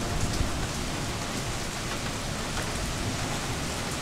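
Heavy rain falling steadily in a thunderstorm, a continuous hiss with single drops splashing close by now and then.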